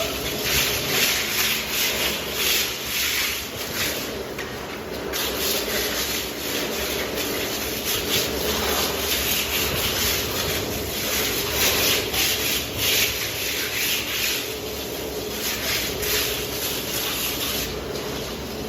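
Plastering trowel scraping and spreading plaster across a wall in repeated sweeping strokes.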